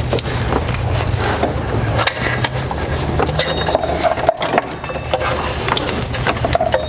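Ribbed rubber serpentine belt being worked by hand around and off the tensioner pulley: the belt rubs and scrapes against the pulley and nearby engine parts, with scattered clicks and knocks of handling.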